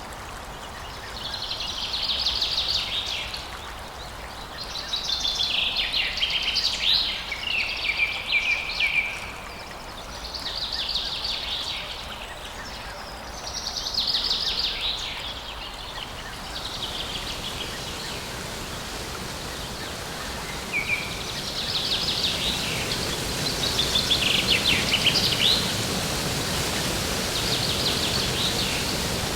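A songbird singing trilled phrases, about nine of them, each a second to a few seconds long with short pauses between, over a steady hiss of background noise that grows louder in the second half.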